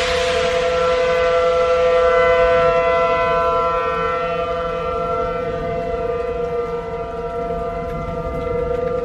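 Outdoor severe-weather warning siren sounding a steady tone with several overtones, swelling and easing slightly in loudness. A rush of noise fades out in the first second.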